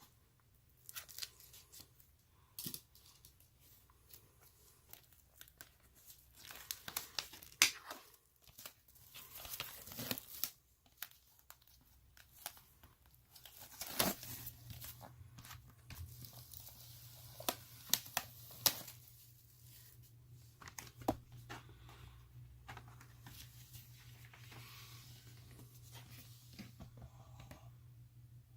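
Plastic shrink-wrap being torn open and peeled off a sealed vinyl LP sleeve: irregular crinkling and tearing with sharp snaps and clicks. A faint steady low hum comes in about halfway through.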